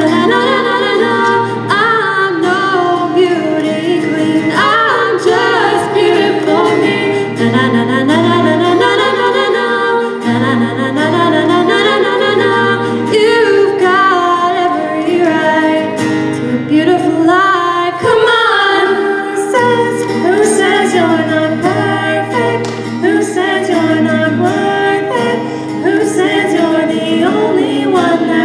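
Group of women singing a pop song in harmony, mostly without clear words, over a steady low bass line.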